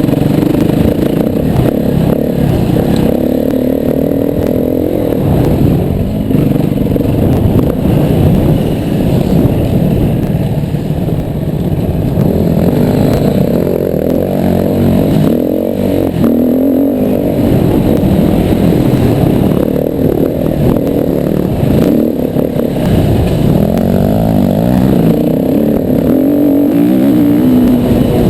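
Yamaha WR250R single-cylinder four-stroke dirt bike engine being ridden off-road. It revs up and down over and over as the throttle is worked.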